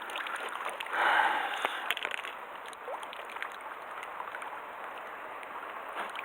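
Water lapping and sloshing against a small fishing boat, with a louder rush of noise about a second in and scattered light clicks.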